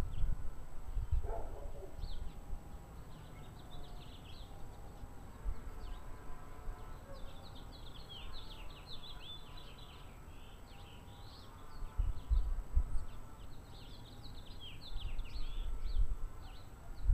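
Small birds chirping in bursts of quick calls. Irregular low rumbles of wind on the microphone come and go, loudest a little past the middle and near the end.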